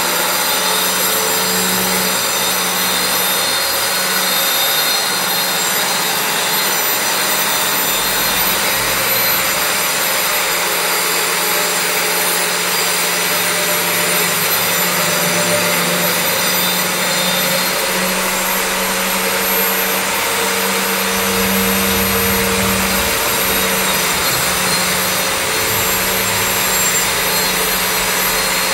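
Steady machine noise: a continuous hiss with a low hum under it, unchanging in level.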